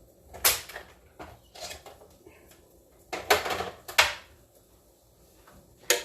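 Kitchenware being handled, with a knock about half a second in, a cluster of knocks and scrapes around three to four seconds, and a sharp knock near the end.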